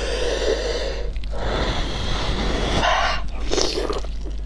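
A person blowing out two long, forceful breaths through pursed lips while eating, followed by short mouth noises as she bites into the food near the end.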